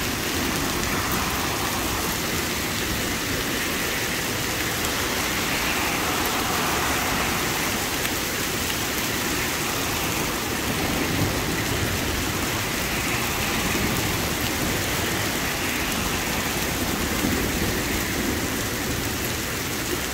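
Hail and heavy rain pelting pavement and a flooded parking lot: a steady, dense hiss with no break.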